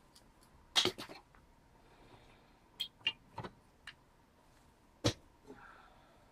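A series of short, sharp clicks and knocks from hands handling tools and parts. There are two close together about a second in, four lighter ticks a couple of seconds later, and one louder knock near the end.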